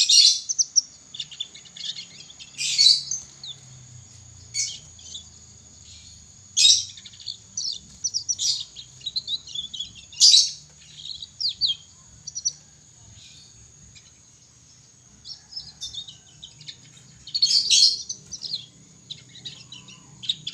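Young domestic canary twittering in scattered bursts of high chirps and short trills, with gaps between them: the rambling practice song of a juvenile canary learning to sing.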